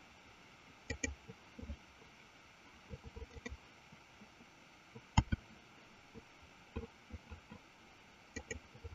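Scattered clicks of a computer mouse and keyboard over faint hiss: a quick double click about a second in, single clicks around the middle, the loudest about five seconds in, and another double click near the end.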